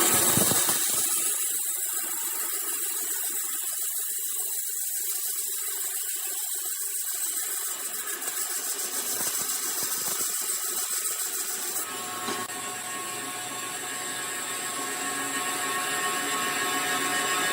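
A high-speed electric power tool running steadily with a high-pitched whine and hiss, working wood; the sound fills out in the low end about twelve seconds in.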